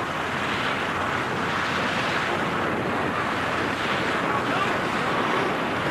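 Steady wind noise rushing over the microphone.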